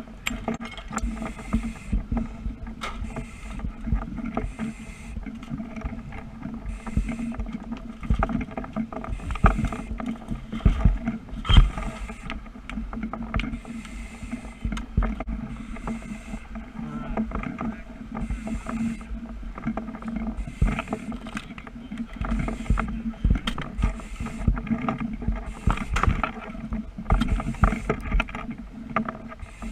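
A steady low mechanical hum with irregular knocks, crackles and hissing rushes over it.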